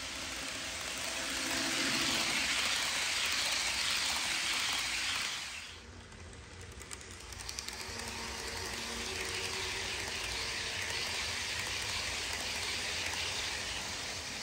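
HO scale model train, a P42 diesel model pulling Amfleet passenger cars, running along the track with a steady whirring rush of motor and wheels that swells as it passes close. The sound drops away suddenly a little before halfway, then comes back with a few light clicks and holds steady as a train approaches and rolls past again.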